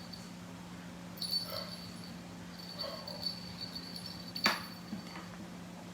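Small bell on a cat toy jingling in short spells as a kitten plays with it, with one sharp knock about four and a half seconds in.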